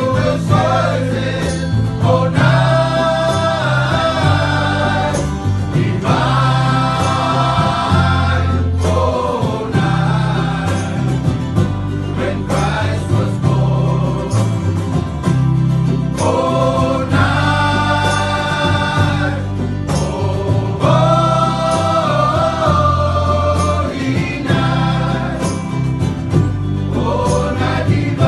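A small group of mostly men's voices singing a Christmas song together, in phrases of held notes, accompanied by strummed ukuleles and guitars.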